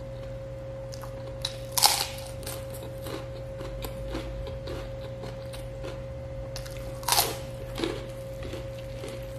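Close-miked eating: two loud crunching bites into a crisp fried piece, about two seconds in and again around seven seconds in, with quieter chewing and mouth clicks between. A steady faint hum runs underneath.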